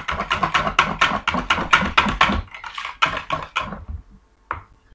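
Wire whisk beating an egg and milk mixture in a plastic mixing bowl: quick, regular strokes, about five or six a second, stopping about four seconds in, followed by one short knock.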